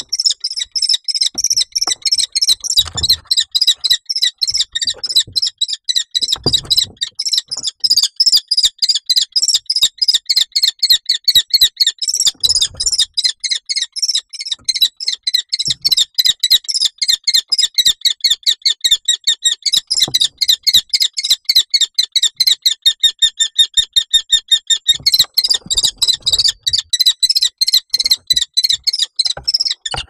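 Common kestrel calling non-stop in a rapid run of shrill, repeated kee notes, about five a second, in alarm at a barn owl in the nest box. A few dull thumps of the birds scuffling against the box break in now and then.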